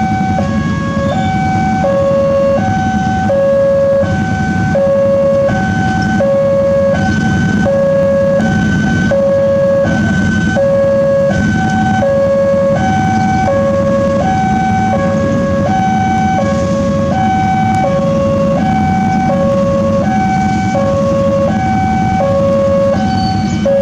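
Railway level-crossing alarm sounding a steady two-tone ding-dong, alternating high and low about once a second, warning that a train is coming while the barriers are down. A low engine rumble from waiting motorcycles runs underneath.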